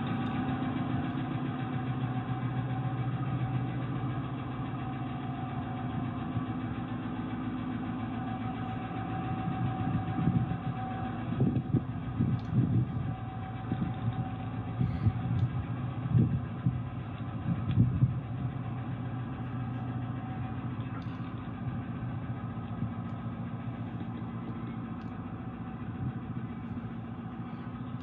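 Subaru Brumby's flat-four engine running steadily, with a few irregular louder surges between about ten and eighteen seconds in. The owner describes the motor as very knocky, with a head knock.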